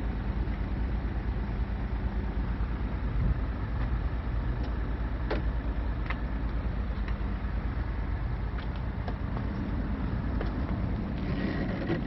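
A vehicle engine idling steadily, a low even hum with a fast, regular pulse, with a few light taps and knocks here and there.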